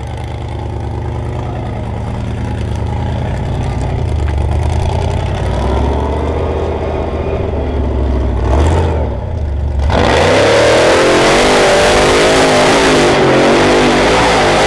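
Off-road buggy's engine revving under load as it climbs a steep hillside, building steadily; about ten seconds in it goes to hard throttle and becomes much louder, the pitch wavering up and down.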